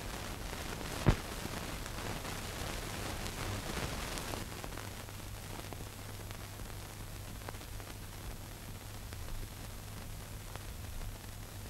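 Steady hiss and low hum of an old film soundtrack, with a single sharp click about a second in.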